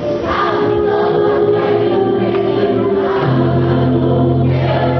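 A stage cast singing together as a choir over the musical's accompaniment, in a musical theatre number; a deep held note comes in underneath about three seconds in.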